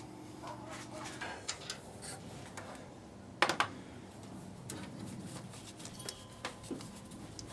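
Scattered light clicks and handling noises from small metal parts being fitted back together, with one sharper clink about three and a half seconds in.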